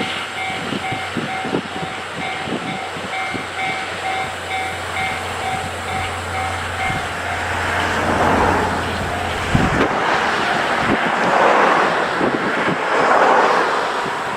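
Japanese level-crossing warning bell ringing in a steady repeating pattern over the rumble and rail-joint clatter of a passing train. The bell stops about halfway. After that, rushing swells of noise rise and fall.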